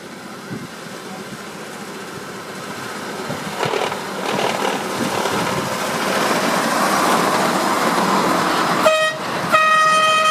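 Ride-on miniature railway train running towards the listener and passing, its running noise on the track growing louder. Near the end its horn sounds a brief toot and then a longer blast.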